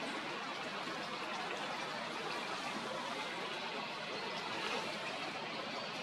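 Water trickling steadily into a small pond.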